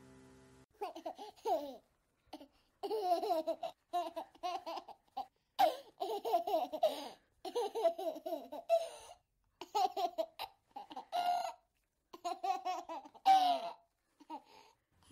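A young child laughing and babbling in a string of short, high-pitched bursts with brief pauses between them.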